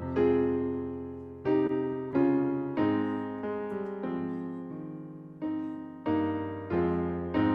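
Solo piano playing slow chords, each struck and left to fade before the next.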